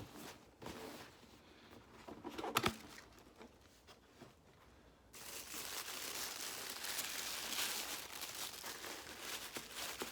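Shoebox opened and the individual wrapping around the shoes handled: a few scattered rustles and a sharp click about two and a half seconds in, then steady crinkling and crumpling from about five seconds on.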